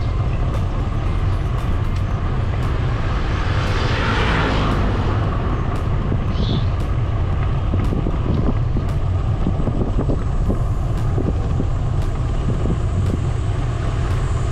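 Steady wind noise on the microphone of a moving bicycle, with road noise underneath. A brief louder rush comes about four seconds in.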